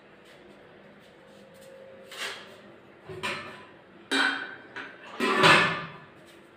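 Stainless-steel kitchen pots and utensils clanking as they are handled on a counter: several separate metallic knocks with a brief ring, the loudest near the end.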